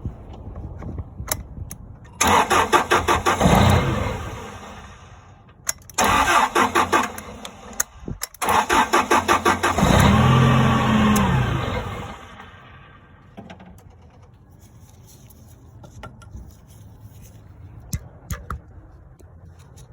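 Toyota forklift engine cranked on the starter three times. The first two tries don't start it. On the third it fires, revs up briefly, then dies away.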